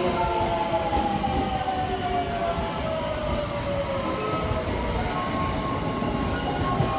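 JR West 281 series limited express Haruka braking into a station: the motors' electric whine falls steadily in pitch as the train slows, over a continuous rumble of wheels on rail. A thin high squeal joins in from about two seconds in and stops about five seconds in, then steady tones carry on as the train comes to a stand.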